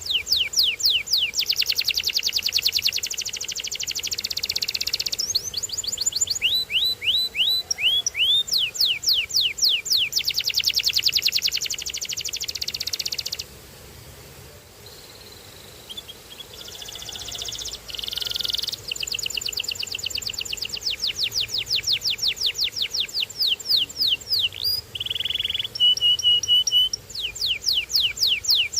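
Domestic canary singing: fast rolls of rapidly repeated, downward-sweeping high notes, changing pace from tour to tour, with a pause of about two seconds midway and a short steady held note near the end.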